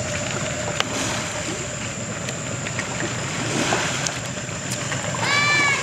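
Steady hum of a boat's engine with water washing and splashing around a swimming pygmy elephant. Near the end comes a brief, loud pitched call that rises slightly and falls.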